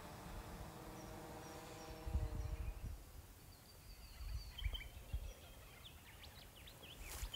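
Faint outdoor ambience: a faint steady hum that fades out about three seconds in, a couple of low rumbles, and a few short bird chirps in the second half.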